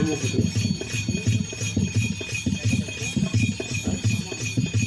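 Live folk music: a hand drum beating a quick, steady rhythm with a high jingling over it.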